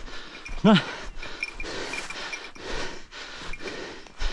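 Footsteps and rustling through brush at a steady walking pace, with heavy breathing, and one short shouted call a little under a second in.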